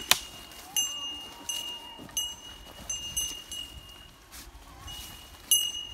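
A small metal bell jingling every second or so as it swings with walking, each strike ringing briefly at a high clear pitch, over the faint rustle of steps through bamboo grass.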